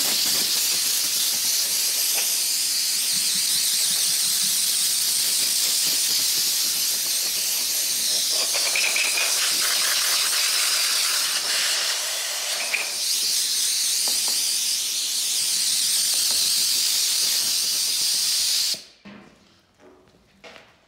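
Compressed-air blow gun hissing steadily as sanding dust is blown off a sanded car hood, then cutting off abruptly near the end.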